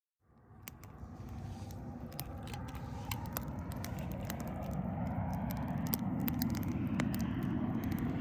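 Campfire crackling: many sharp pops and snaps over a low rushing noise that slowly grows louder.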